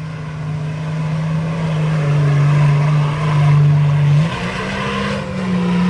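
Off-road 4x4's engine revving hard under load as it churns through deep mud with its wheels spinning; the engine note holds, sags about two seconds in, then climbs sharply just after four seconds. An onlooker says the driver has not engaged four-wheel drive.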